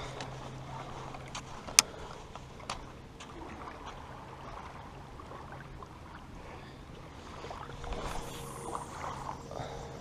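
Light wind and water lapping at a shoreline with a low steady hum underneath, broken by one sharp click about two seconds in and some handling rustle near the end.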